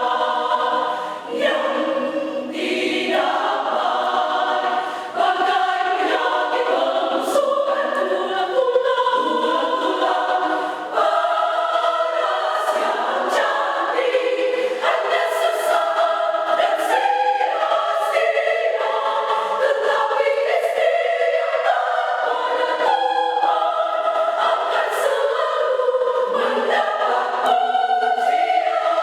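A women's small church choir singing a sacred piece in several parts, without speech, with held chords moving from note to note and the consonants of the words clearly audible.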